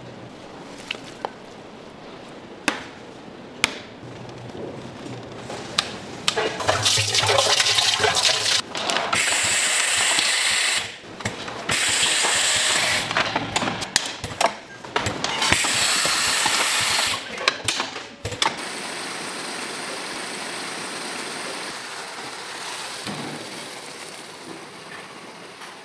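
Water rushing in four bursts of a couple of seconds each, among scattered clicks and knocks of handling, then a quieter steady hiss.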